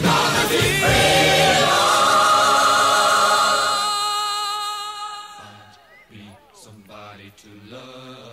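Soundtrack music: a song ends on a loud, long-held sung chord that fades away about four to five seconds in. Quieter choir-like singing with no instruments follows.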